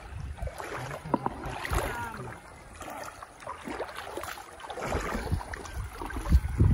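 Shallow river water rushing and splashing, with gusts of wind on the microphone that grow stronger in the second half.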